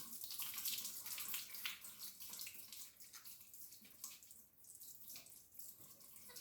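Running water splashing as shampoo is rinsed out of hair, louder for the first couple of seconds, then softer.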